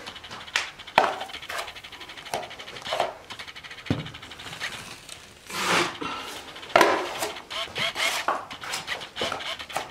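A steel drywall mud knife spreading 5-minute setting joint compound across a ceiling patch: a series of short wet scraping strokes with small clicks and taps of the blade.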